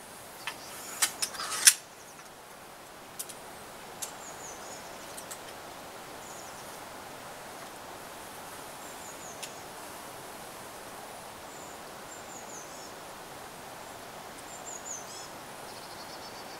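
A few sharp clicks and one loud snap just under two seconds in, from the MX-80 pistol crossbow being handled and shot. After it, small birds chirp now and then over a steady outdoor hiss.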